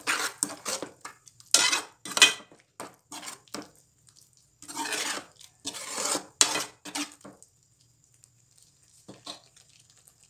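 Metal ladle scraping and knocking against a metal kadai as a thick prawn masala is stirred, in quick strokes grouped in several runs. The strokes stop for a moment near the end, then a few faint ones follow.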